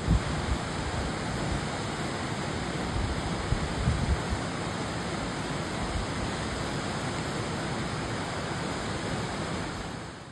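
Steady, loud rush of flowing water, as from a river's rapids or a waterfall in a gorge, with low rumbles near the start and about four seconds in.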